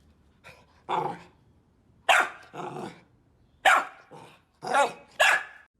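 A dog barking: several short, loud barks at irregular intervals.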